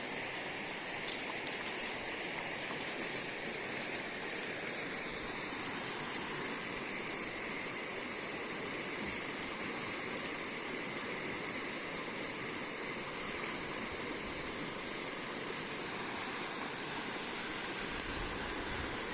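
River water rushing steadily over rocks, with one short sharp click about a second in.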